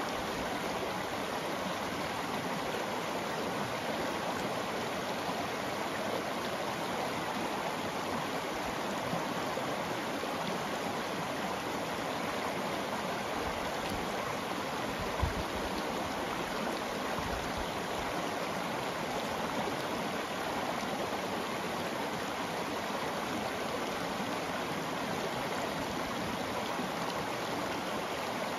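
Shallow river rippling over a cobble and gravel bed: a steady rush of running water. A brief low bump comes about halfway through.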